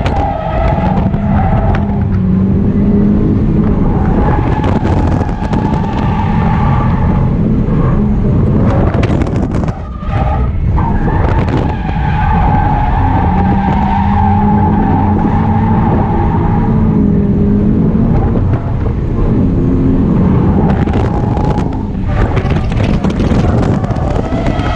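Subaru BRZ's flat-four engine revving hard and rising and falling in pitch while drifting, heard from inside the cabin, with tyres skidding and squealing on the slides. The engine drops away briefly about ten seconds in before pulling again.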